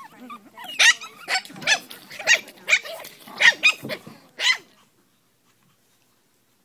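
Shih Tzu puppies yapping: about a dozen short, high yips in quick succession, stopping about five seconds in.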